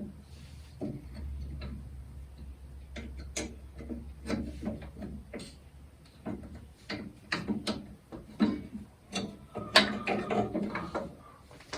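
Irregular metallic clicks and knocks of tools and steel drawbar hardware being handled on a small tractor. The clatter grows busier in the second half, with some strikes ringing briefly, and a low hum sits under the first few seconds.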